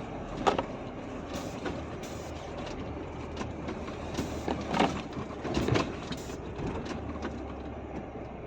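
Truck engine running at low speed, heard from inside the cab, with several sharp knocks and rattles as it rolls over a rough road.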